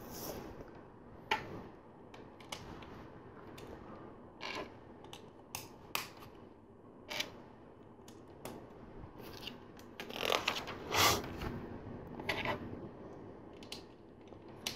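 LEGO plastic bricks being handled and pressed onto a model: scattered small sharp clicks, with a few louder bursts of handling and rattling of parts about ten to eleven seconds in.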